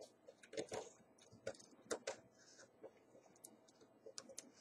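Small screwdriver working a slotted nut on a Zenit E camera's winding mechanism, unscrewing it: faint, irregular little metal clicks and ticks.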